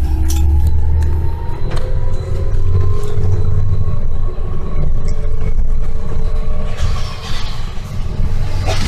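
Bus engine and drivetrain rumbling inside the cabin as the bus drives, with a whine that rises slowly in pitch as it picks up speed over the first few seconds. A hiss builds near the end.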